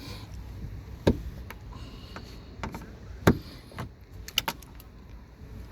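Scattered sharp clicks and taps of a screwdriver, screws and plastic trim as a car's sun visor mount is worked loose by hand, with the loudest knock about three seconds in.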